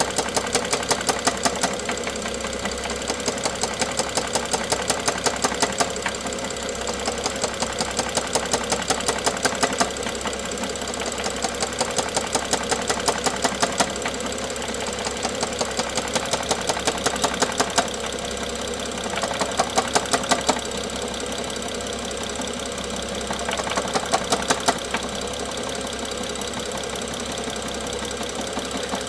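BMW N55 turbocharged straight-six running with a rapid, even knocking. The knock swells louder in spells of a few seconds and then drops back, again and again.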